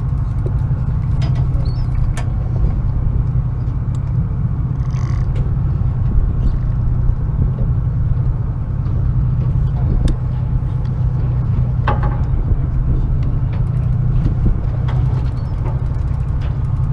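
Boat engine running at a steady idle, a constant low drone, with scattered light clicks and creaks.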